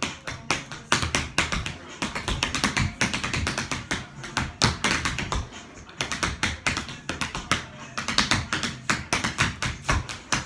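Tap shoes striking the floor in a fast tap-dance combination: rapid, uneven runs of sharp metal taps, several strikes a second.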